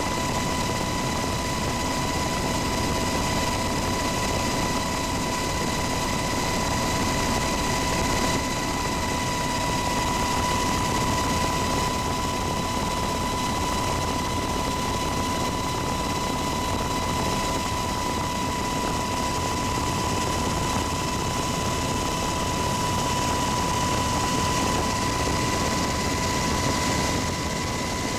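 UH-60 Black Hawk helicopter in level flight, heard from inside the cabin: the steady rush of its twin turboshaft engines and rotor, with a constant high whine over it.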